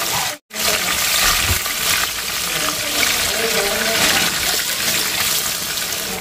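Hot oil sizzling steadily as battered food deep-fries in a wok, cutting out for a moment about half a second in.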